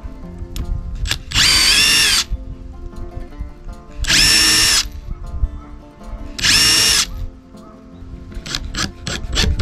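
Cordless drill running in three short bursts of about a second each, with a steady whine, boring shallow pilot holes into a thin pine board for hinge screws so the wood does not split. A run of quick clicks follows near the end.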